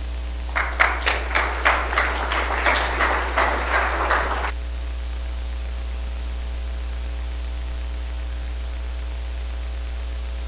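Short round of applause from a seated congregation, with one clapper's claps standing out at about three a second. It stops about four and a half seconds in, leaving a steady electrical hum and hiss.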